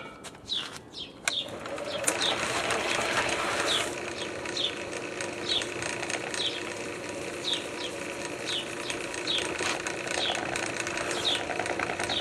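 A couple of clanks, then about two seconds in a drill press's motor starts and runs steadily, turning a steel dough hook through bread dough in a rotating propane-tank bowl. A short high squeak comes back roughly every two-thirds of a second.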